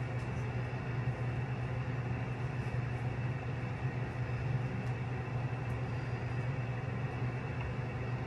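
A small motor running steadily, giving a constant whir over a low hum.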